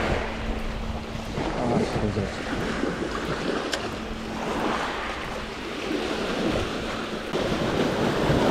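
Small waves washing up and draining back on a gravel beach, the surge swelling and easing every few seconds, with wind buffeting the microphone.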